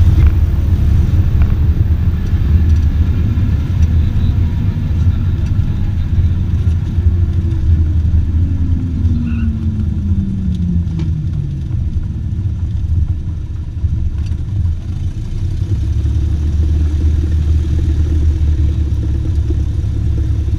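Cessna 172R's four-cylinder Lycoming engine running at low power with a steady low drone, heard from inside the cabin as the plane rolls along the runway. Midway through, a tone glides down in pitch.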